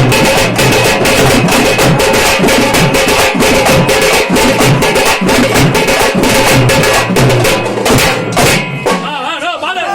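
Fast, loud drumming, an even run of rapid strikes, that stops about nine seconds in; a wavering melody then starts.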